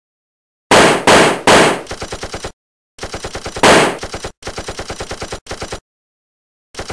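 Gunfire sound effects: about a second in, three heavy shots in quick succession, then several bursts of rapid machine-gun fire at about ten rounds a second, broken by short pauses, with one more heavy shot among them.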